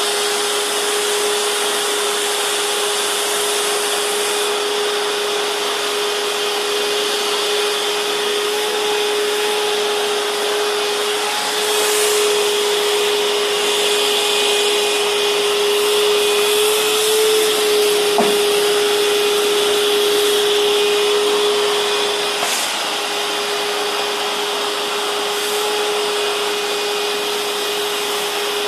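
Vacuum cleaner running steadily with a constant motor whine over its rushing suction noise, as its nozzle is worked over a Labrador's coat; the suction gets somewhat louder for a stretch in the middle.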